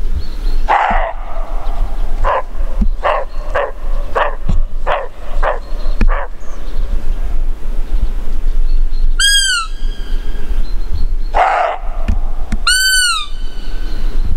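Roe deer barking: one hoarse bark, then a quick run of about eight short barks, and another bark later. In between, two high whistled calls, each rising then falling.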